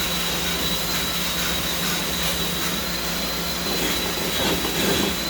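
Cordless power tool running steadily at speed with a high whine, scouring loose surface rust off a steel hood hinge to prepare it for paint.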